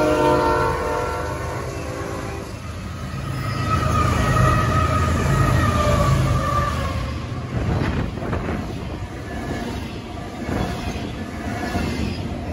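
BNSF freight train passing close at speed. The lead diesel locomotive's horn dips in pitch as it goes by and ends about two and a half seconds in. The locomotives then rumble past, and from about halfway on the double-stack container cars clatter over the rails in quick, uneven clacks.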